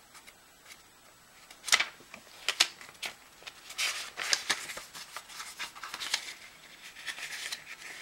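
Rummaging noises: scattered rustles of handled paper and sharp light clicks, starting after a second and a half of near quiet.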